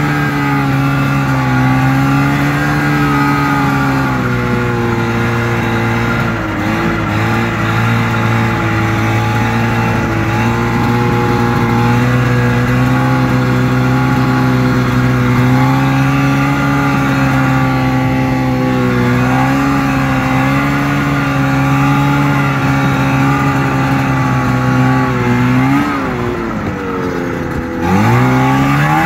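Ski-Doo snowmobile engine running at a steady speed under way on a trail. Its note holds level pitch most of the time, drops off as the throttle is let off about 26 seconds in, and rises again as it picks back up near the end.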